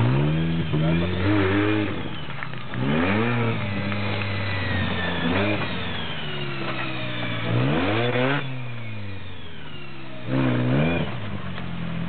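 Engine of a Suzuki-based off-road prototype 4x4 revved hard in repeated bursts, about six in all, each climbing in pitch and then dropping back. It is under load, clawing up a steep muddy bank.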